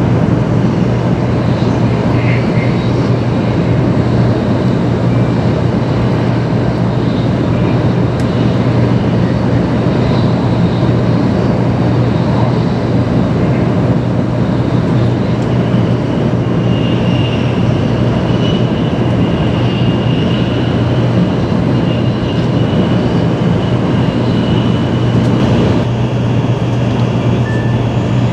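Taiwan High Speed Rail 700T train running at speed, heard inside the passenger cabin: a steady rush of running noise over a strong low hum. A faint high whine rises above it for about ten seconds in the second half.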